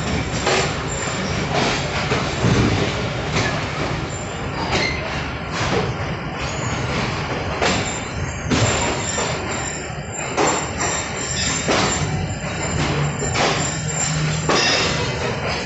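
Background music with a steady beat, about one hit a second.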